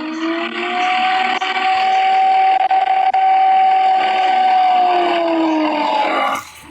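The TIV 2's engine revving up to a steady high pitch, holding it for about four seconds, then winding down near the end.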